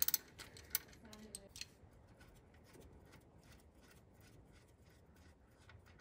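Socket ratchet clicking as it backs off the grounding bolt on the engine block: a quick, uneven run of light clicks in the first second and a half, then almost quiet.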